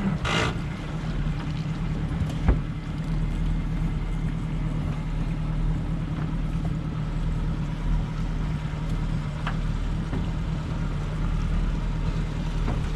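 Boat engine idling steadily, with a few sharp knocks, the loudest about two and a half seconds in.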